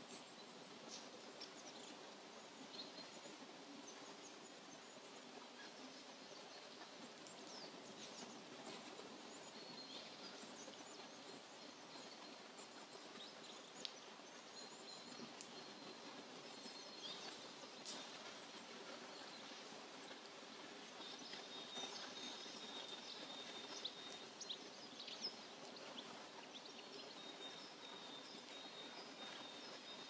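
Faint forest ambience: scattered high bird chirps and calls over a steady soft background hiss, with a thin high trill-like call held for a few seconds at a time in the middle and later on, and a few brief sharp ticks.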